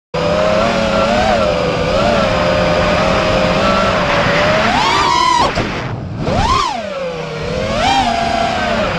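FPV quadcopter's DYS 2306 2500kv brushless motors and propellers whining at a steady pitch, then surging sharply up and dropping with throttle punches about five and six and a half seconds in, with a smaller surge near the end. Wind rushes over the onboard GoPro Session's microphone.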